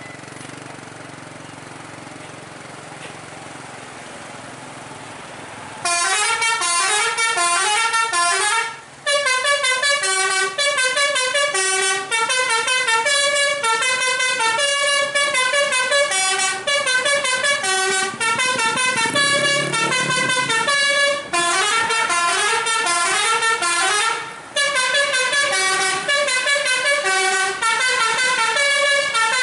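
Telolet basuri musical bus horn playing a long, fast melody of short stepping notes, starting about six seconds in after a few seconds of low vehicle rumble, with a couple of brief breaks.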